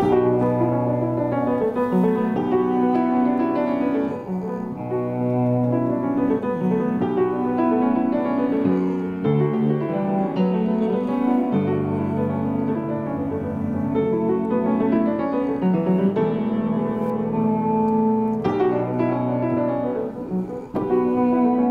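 Piano-led jazz-inflected piece in a minor key, played without drums, with a low bass line under melodic lines.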